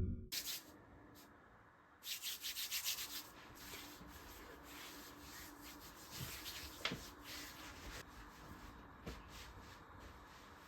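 Rapid rubbing or scraping strokes for about a second, after a short silence, followed by faint scattered rustling and a few small ticks.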